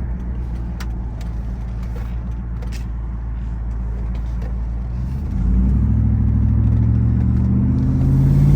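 Car engine running through a loud exhaust with a steady low rumble, then picking up revs about five seconds in, the exhaust note getting louder and its pitch climbing slowly.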